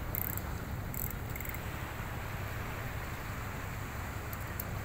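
Steady wind rumbling on the microphone, with waves washing against the rocks of the breakwater.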